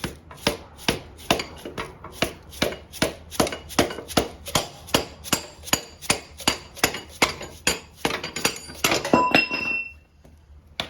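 Hammer striking a 5/8-inch steel rod to drive the 1-inch rear axle out of a Harley-Davidson Road King, sharp metal-on-metal taps at about two to three a second. Near the end the blows come quicker and give a brief metallic ring, then stop.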